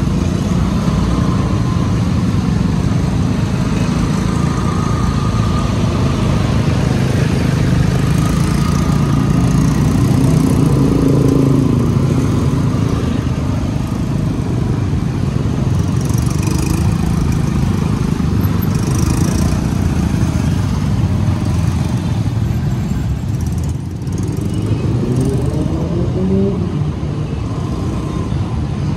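Suzuki scooter riding slowly through city traffic: steady engine and road noise with passing cars and motorcycles. An engine note rises near the end.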